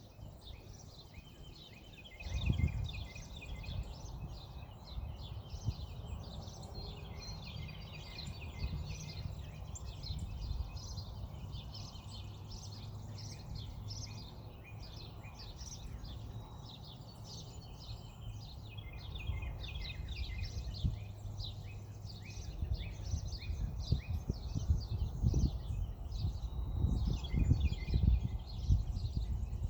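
Small birds chirping rapidly and almost without pause in many short high notes, with wind rumbling on the microphone in gusts, strongest about two seconds in and again over the last several seconds.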